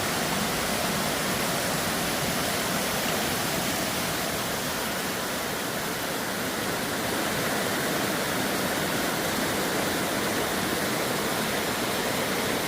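A natural stream, water rushing and babbling over rocks in a steady, even hiss.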